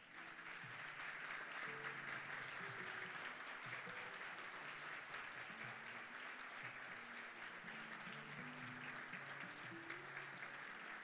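Audience applauding steadily over soft background music with a simple melody.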